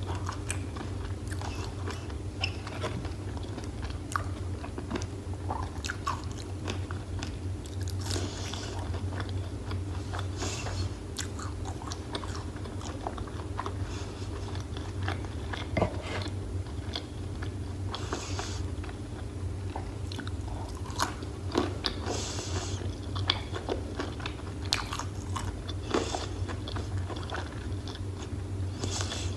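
Close-miked biting and chewing of crispy breaded fried food, with many short crunches and crackles scattered throughout, over a steady low hum.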